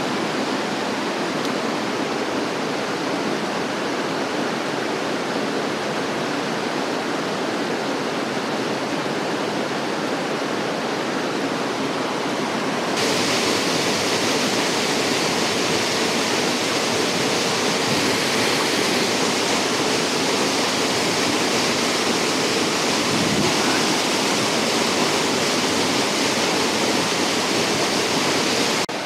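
Rushing water of an alpine mountain stream tumbling over rocks in a steady hiss. About 13 seconds in it gives way to the louder, brighter rush of a waterfall pouring into a pool.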